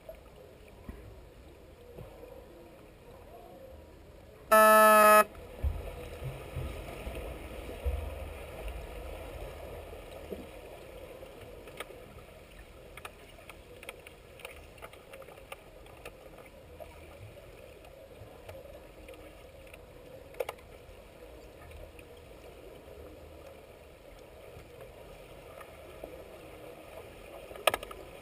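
An underwater hockey referee's buzzer sounds one loud, steady, pitched tone for under a second, about five seconds in, signalling play. Around it, the low rumble and hiss of water moving past the microphone, with scattered faint clicks.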